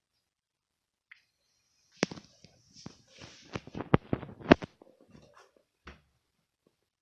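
Irregular knocks and clatter of hard objects being handled, starting about two seconds in, with the loudest knocks a little past the middle and a last single knock near the end.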